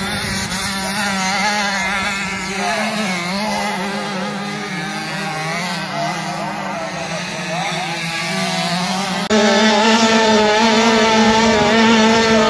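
Small youth motocross bikes revving, their engine pitch rising and falling as they ride past on the dirt track. About nine seconds in the sound cuts abruptly to one bike's engine heard close up from on board, louder and held at high revs.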